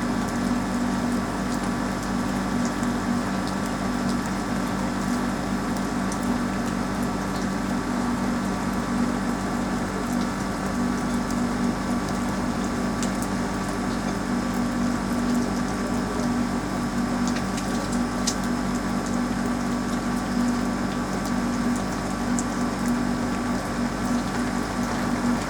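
Steady rain falling on a roof, with scattered drops ticking, under a constant low mechanical hum that does not change.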